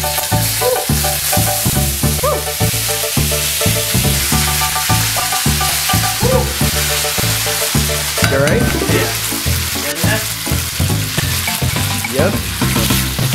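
Chicken pieces sizzling and frying in hot oil in a wok, a steady hiss, with a background music track and its repeating bassline playing over it.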